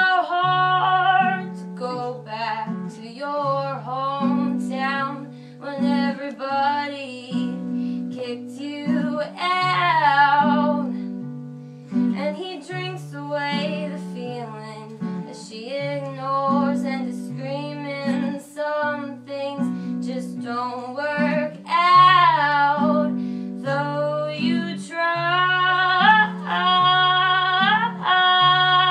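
Live band music: a voice singing long, wavering held notes over guitar accompaniment with a repeating low note pattern.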